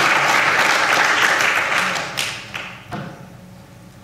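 Audience applauding, the clapping dying away about two seconds in, followed by a single thump near the end.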